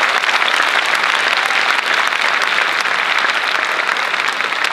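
Theatre audience applauding steadily: dense clapping from many hands, with some cheering, after a stand-up set ends.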